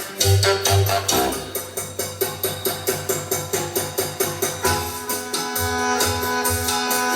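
Music played through a 1977 Technics SA-5360 stereo receiver: fast, even percussion strikes about four a second, giving way to held notes a little past halfway.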